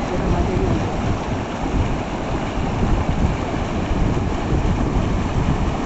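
Loud, steady rushing noise with wind buffeting the microphone.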